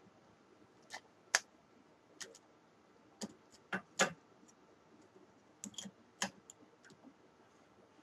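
Irregular light clicks and knocks, about a dozen, some in quick pairs, with the loudest about a second and a half in and about four seconds in.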